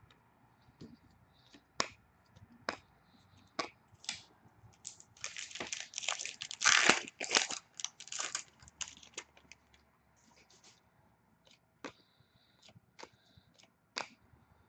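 Trading card pack wrapper being torn open and crinkled, a dense crackling from about five to nine seconds in. Before and after it come scattered sharp clicks of a stack of cards being handled.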